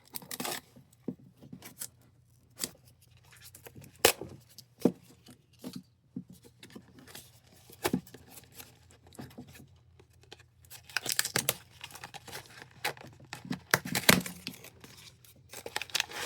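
A cardboard blind box being opened by hand: packaging tearing and plastic crinkling in short bursts, with scattered clicks and taps as it is handled, busiest in the last few seconds.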